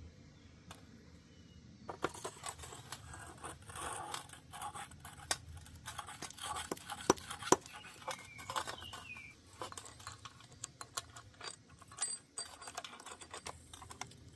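Small metal parts of a lawnmower transmission clicking, clinking and scraping as gears and parts are handled and fitted by hand. It starts about two seconds in, with many sharp irregular clicks.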